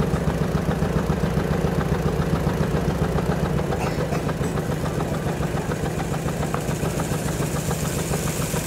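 A motor vehicle's engine idling steadily, with a rapid, even pulsing beat.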